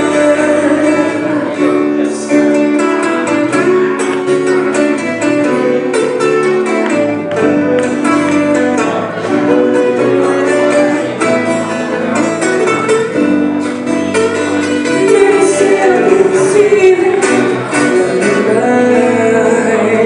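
A small live band playing, acoustic guitars strumming and picking chords under a singing voice.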